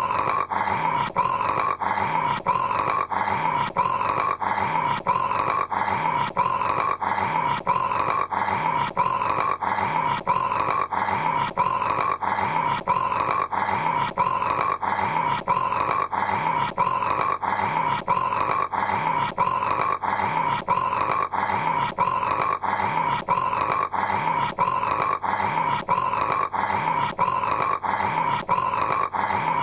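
A man snoring in quick, evenly repeating rasps with no pauses between them.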